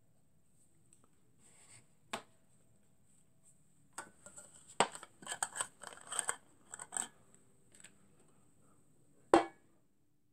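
Small brass alcohol burner being handled and set down: a click about two seconds in, then a run of light metallic clicks and scrapes, and a single louder knock near the end.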